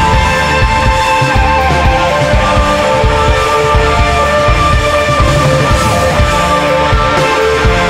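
Rock music with held, sustained notes over a steady low beat.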